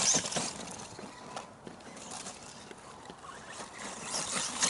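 ECX Ruckus 1/10 RC monster truck running on frozen dirt with its brushless electric motor. The sound is faint, dropping about a second in and rising again near the end.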